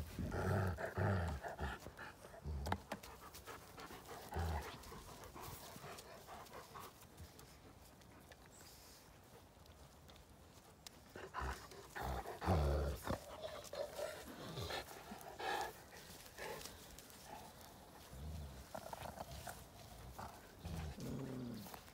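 Dogs panting and giving short low grunts while they chew and tug at a large wooden stick, with scattered clicks and scrapes of teeth on the wood. The grunts come in short clusters, loudest a little past halfway.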